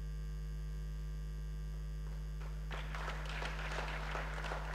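A steady electrical mains hum from the sound system. About two and a half seconds in, an audience starts clapping, a dense patter of many hands that carries on to the end.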